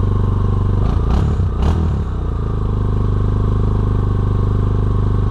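Yamaha Raptor 250 quad's single-cylinder four-stroke engine idling steadily, its top end freshly rebuilt. Between about one and two seconds in the note wavers and there are a couple of short knocks.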